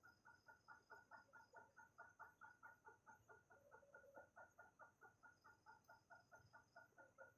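Faint, rapid calls from an animal, repeated evenly at about five a second, with a faint steady high-pitched tone behind them.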